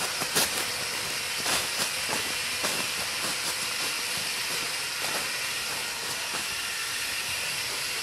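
Steady rushing hiss of flowing river water, even throughout, with a few faint clicks in the first seconds.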